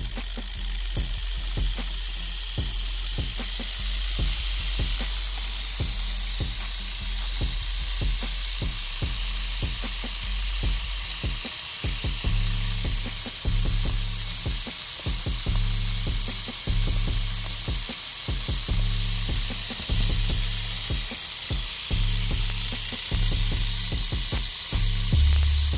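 3D-printed three-coil brushed motor spinning at about 1,760 rpm on 12 volts, its brushes making a steady hiss with fine rapid clicks on the commutator. Background music with a low bass line runs under it, clearer in the second half.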